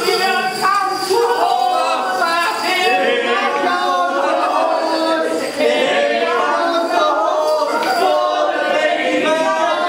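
Several voices singing together without instruments, their lines overlapping.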